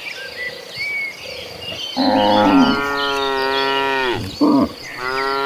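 Cattle mooing: a long, loud moo begins about two seconds in and drops in pitch as it ends, a short call follows, and another long moo starts near the end.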